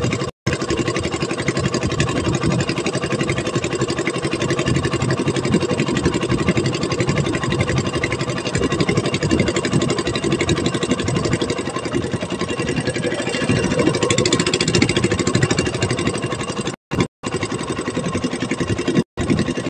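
Small fishing boat's engine running steadily while the boat is under way. The sound cuts out completely for split seconds a few times near the end.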